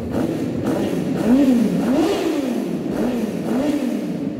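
1999 Kawasaki Ninja ZX-9R's carbureted inline-four running through a Muzzy aftermarket exhaust, blipped on the throttle: the revs rise and fall about four times over a steady idle, highest a little before the middle.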